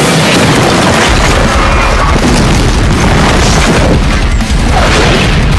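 Film sound effects of a massive fiery explosion and continuous rumbling destruction, loud throughout, with music underneath.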